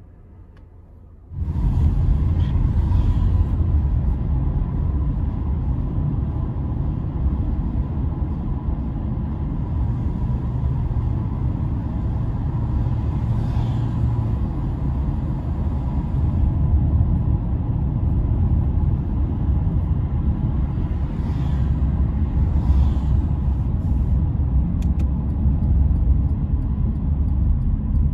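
Steady low road and engine rumble of a moving car, heard from inside the cabin, starting suddenly about a second in. A few faint swishes rise briefly above it.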